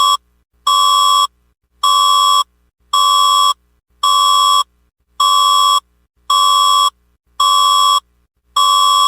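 Emergency alert system test tone: a loud, buzzy electronic beep pulsing about once a second, each beep about half a second long.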